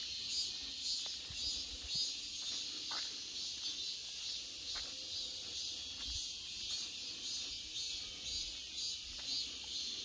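A steady high chorus of insects singing, with soft footsteps on a dirt path underneath.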